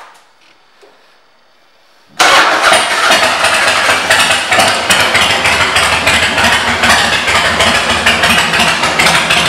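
2004 Harley-Davidson Fat Boy's V-twin engine, breathing through aftermarket Vance & Hines exhaust pipes, comes in suddenly about two seconds in and keeps running with a fast, uneven exhaust beat.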